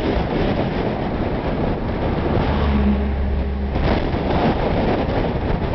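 Strong wind buffeting the microphone: a loud, rough rumble that does not let up. About two and a half seconds in, a steady low hum joins it for about a second and a half, then stops suddenly.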